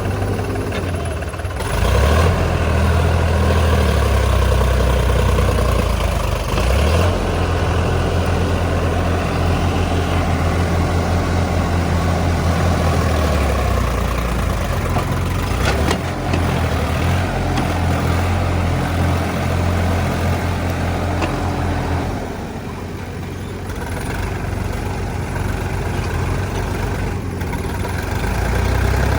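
Diesel engine of a JCB 3DX backhoe loader working, its revs rising about two seconds in. It eases off for a few seconds near the end, then picks up again.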